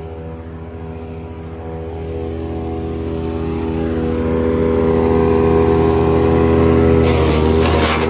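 Ravenger wood chipper's 18-horsepower engine running steadily, growing louder over several seconds. Near the end a loud, harsh crackling cuts in as leafy grapefruit branches are fed into the chipper.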